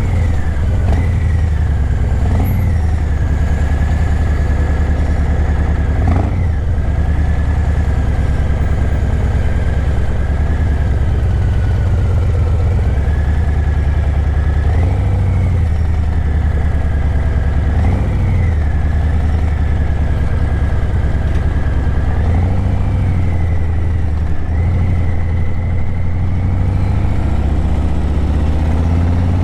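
Harley-Davidson Breakout 117's Milwaukee-Eight 117 V-twin running through Vance & Hines Eliminator 300 slip-on mufflers while riding, a steady low rumble with a few brief rises and falls in revs as the throttle is worked.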